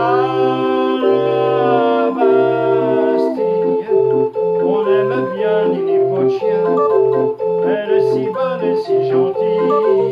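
Street barrel organ with wooden pipes playing an instrumental interlude: held chords for about three seconds, then a lively melody over a regular bass-and-chord accompaniment.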